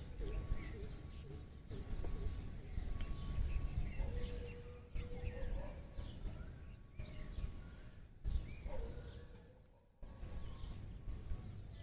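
Birds chirping and calling, many short scattered chirps with a few longer whistled notes, over a steady low rumble, with a few abrupt breaks.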